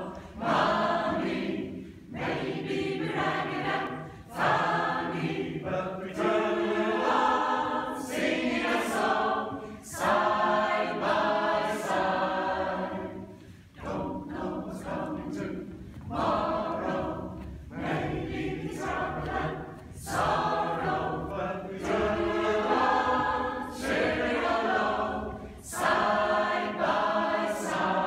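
Mixed choir of men's and women's voices singing unaccompanied, in short phrases about two seconds long, with crisp s-sounds.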